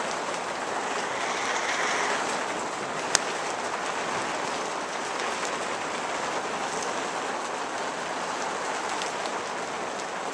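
Steady rain falling on the roof of a ger, an even hiss, with one sharp click about three seconds in.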